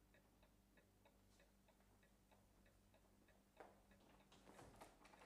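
Faint, even ticking of a clock, about three ticks a second, over a low steady hum. A few soft knocks come in near the end.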